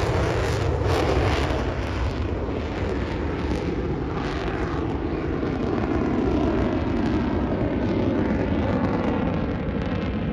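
Airplane engine noise from an aircraft flying by, steady throughout after easing slightly in the first couple of seconds.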